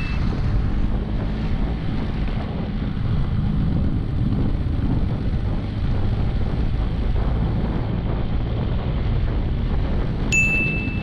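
Bajaj Chetak scooter's engine running steadily while riding, under heavy wind buffeting on the microphone. About ten seconds in, a short bright ding rings once.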